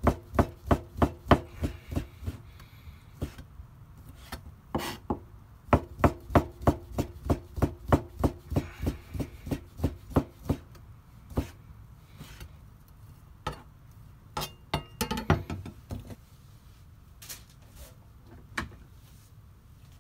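Kitchen knife slicing red Japanese wieners on a plastic cutting board: the blade knocks on the board about three times a second in two runs, then a few scattered single strikes near the end.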